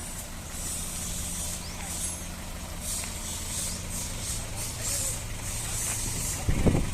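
Mitsubishi BD2e bulldozer's diesel engine running steadily under load, with patches of high hiss coming and going, and a sudden louder thump near the end.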